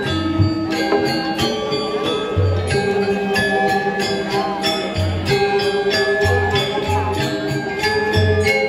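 Balinese gamelan ensemble playing: bronze metallophones ring out a melody in steady held notes over repeated low drum or gong strokes, with frequent cymbal clashes from the ceng-ceng.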